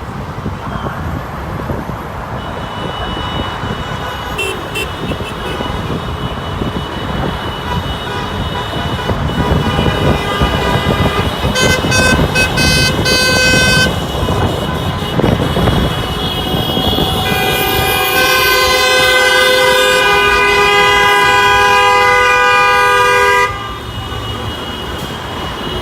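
Car horns honking in celebration over steady traffic noise. A string of short beeps comes around the middle, then one long horn blast is held for about six seconds and cuts off suddenly.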